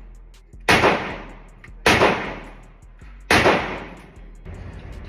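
Three gunshots, each more than a second apart, every one followed by a long echoing tail.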